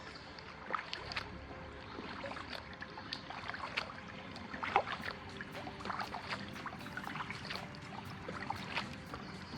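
Kayak paddle strokes: the blades dip in and water drips and splashes off them in small, irregular splashes.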